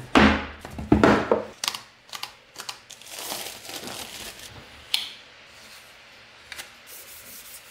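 Cardboard tablet box being opened: the lid sliding and knocking in the first second or so, then a paper sheet crinkling as it is pulled away, and fainter rustling as a protective film tab is peeled off the tablet.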